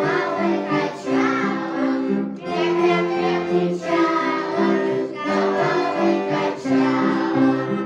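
Young children singing a Russian folk song together, accompanied by an accordion playing sustained chords.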